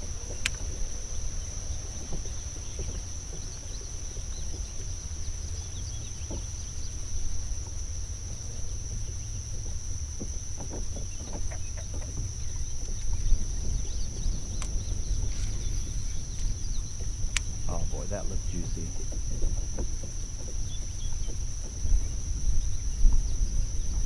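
Insects shrilling in one steady high note, over a constant low rumble, with a few sharp clicks now and then.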